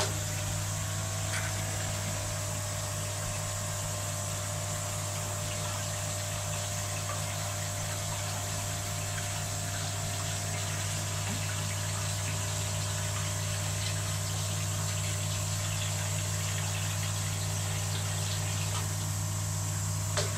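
Koi pond filter pump running with a steady electric hum while water flows in to refill the upflow filter at the end of its flush cycle.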